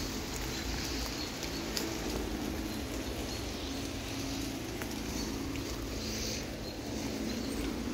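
Steady rain falling on woodland canopy and leaves: an even hiss with scattered sharp drip hits.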